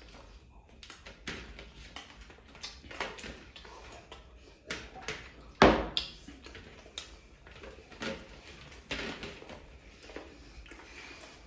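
Close-up eating sounds of two people eating chicken with their hands: chewing and mouth smacks with scattered irregular clicks, and one loud thump about five and a half seconds in.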